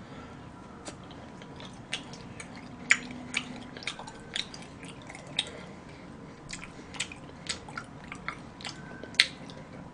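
Close-up chewing of chocolate cake with a hard white decorated topping: soft, wet mouth sounds with scattered small clicks and crunches.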